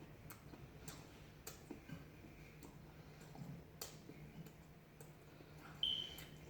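Faint close-up eating sounds: crisp, irregular clicks and crunches of someone chewing deep-fried food. A brief high squeak about six seconds in is the loudest moment.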